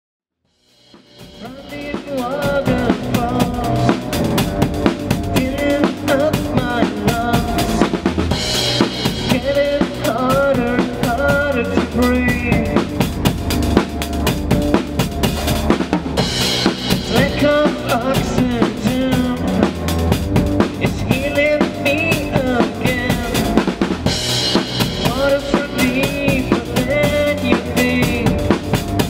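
Drum kit played fast and dense in a post-black metal song, with bass drum, snare and cymbals over the rest of the band's recorded music. It fades in over the first two seconds, with a brighter cymbal wash about every eight seconds.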